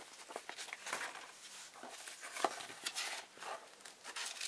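Paper rustling, with light irregular taps and crinkles, as a model kit's instruction booklet is handled and laid aside.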